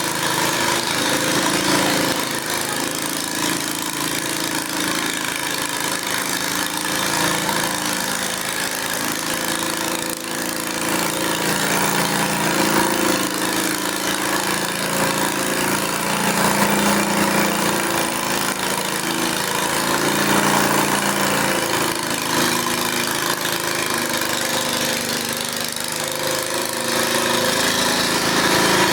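Garden tractor engine running under load, its pitch rising and falling every few seconds.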